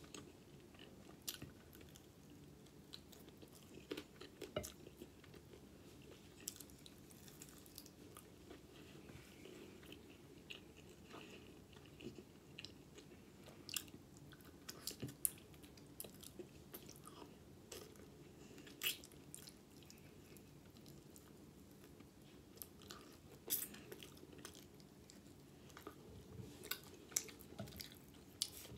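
A person chewing chicken wings and eating the meat off the bone, with lip smacks and scattered sharp mouth clicks.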